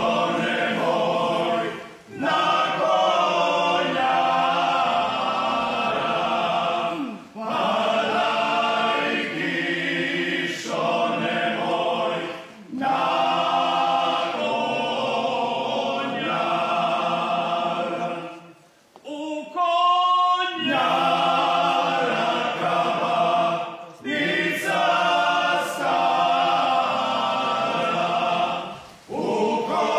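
A group of men singing a Slavonian folk song together, in phrases of about five seconds with short breath pauses between them. In the longer pause about two-thirds of the way through, a single tone briefly slides up and down.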